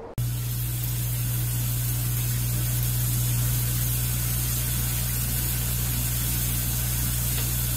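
A steady hiss with a low hum beneath it, starting abruptly and holding an even level throughout.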